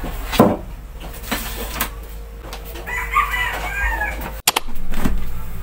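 A rooster crowing in the background, a wavering call about three seconds in, after a few knocks of things being set down on a wooden table.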